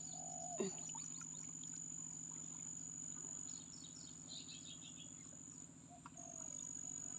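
Outdoor evening ambience: insects keep up a steady high trill, and birds chirp now and then, with a faint low hum underneath.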